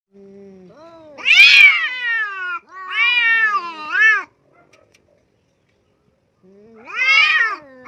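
Domestic cat meowing: a faint low call, then three long, drawn-out meows that rise and fall in pitch, with a pause of about two seconds before the last.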